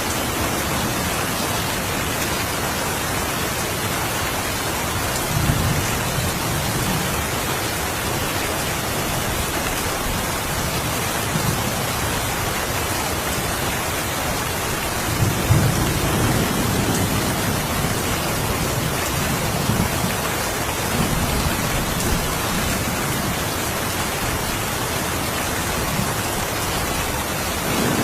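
Steady rain falling, an even hiss, with distant thunder rumbling low several times, strongest about halfway through.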